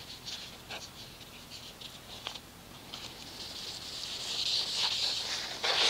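Soft wet swishing of a pad being rubbed over soapy car paint, growing louder from about halfway, with a few light ticks and drips before it.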